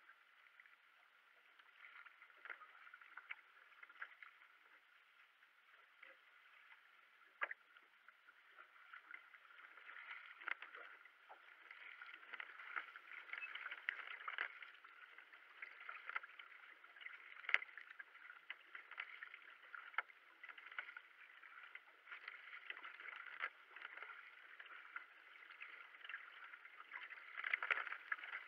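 Racing kayak paddled at a steady pace: irregular splashes of the paddle blades and water rushing along the hull, with a few sharp clicks. The sound is faint.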